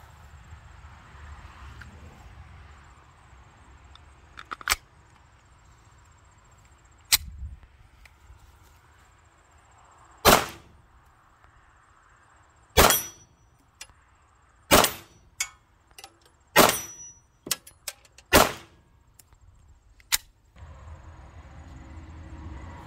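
Semi-automatic pistol firing five single shots, spaced about two seconds apart, with a few sharp metallic clicks of handling before and between them.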